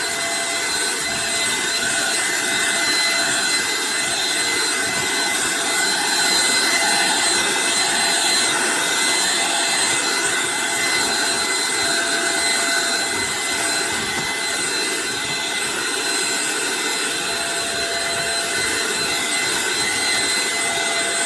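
Eureka NES215A Blaze stick vacuum cleaner running steadily: a constant rush of air with a steady, high motor whine.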